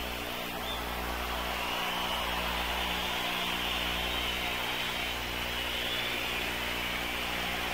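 A steady electrical hum runs under a constant noisy wash of crowd noise from the arena, with no single event standing out.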